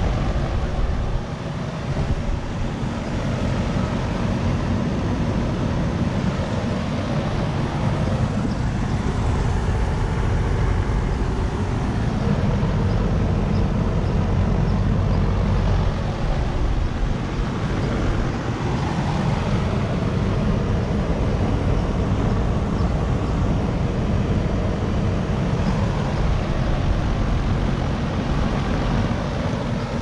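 1983 Carrier Round One central air conditioner's outdoor unit running steadily: compressor and condenser fan going at a constant level, with the fan blowing air out through the top grille.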